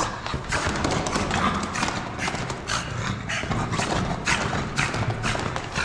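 Irregular footfalls on tiled stone stairs: a French Bulldog in rubber boots climbing, with the person following a step behind.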